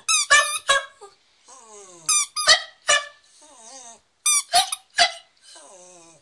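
A plush squeaky toy squeezed in quick groups of two or three squeaks, three times, and after each group a puggle answers with a short, quieter howl that wavers and falls in pitch: the dog 'singing' along to the squeaker.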